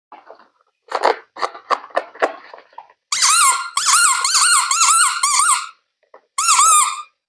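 A few sharp taps, then a loud high-pitched toy squeak that wavers up and down in pitch about four times a second for about two and a half seconds, returning briefly near the end.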